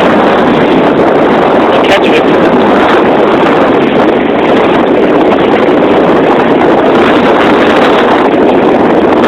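Loud, steady rushing noise of wind buffeting the camera microphone.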